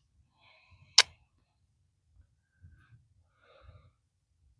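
A single sharp click about a second in, with a few faint handling sounds around it.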